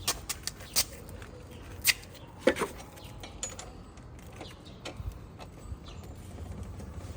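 A run of sharp clicks and knocks, quick and close together at first, with a louder knock about two and a half seconds in, then only a few faint ticks over a low steady hum.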